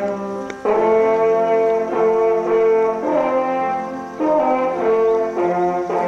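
Brass music: held notes sounding together, moving to a new note roughly every second.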